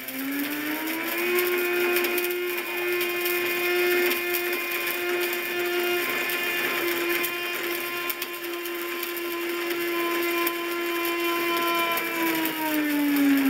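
Blendtec blender motor grinding a tape measure in the jar on its preset cycle. It speeds up just after the start, runs at a steady high speed, then slows down near the end.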